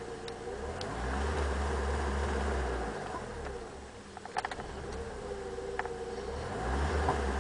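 BMW E30 318i's M40 1.8-litre four-cylinder engine running with its speed rising and falling: it holds up, sags about halfway through with a few sharp clicks, then picks up again near the end. The stumble around 2000 rpm is the sign of a vacuum leak, here a loose vacuum hose.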